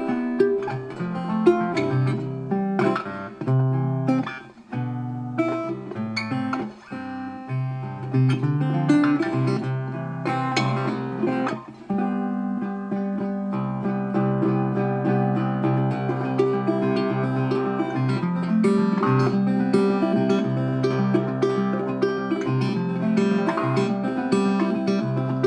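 Guitar music: plucked notes with short breaks at first, then a steady run of picking and strumming from about halfway through.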